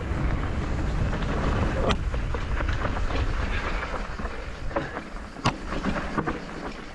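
Mountain bike rolling along a dry dirt singletrack: tyre noise on dirt and stones and wind on the microphone, with sharp knocks from the bike over the ground, one about two seconds in and a louder one about five and a half seconds in.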